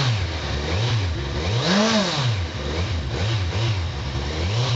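2012 Kawasaki Z1000's inline-four engine being revved in a series of quick throttle blips from idle, each rising and falling in pitch, the highest blip about two seconds in.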